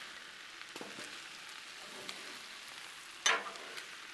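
Chicken and vegetables sizzling on the hot steel of a Blackstone flat-top griddle, while metal spatulas scrape across the cooktop, pushing the food into a pile. A sharper, louder metal clatter comes about three seconds in.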